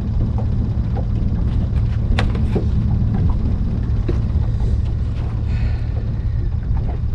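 Steady low wind rumble on the microphone, with scattered sharp clicks and knocks as a speckled trout is swung aboard and handled on the boat, one knock a little over two seconds in the sharpest.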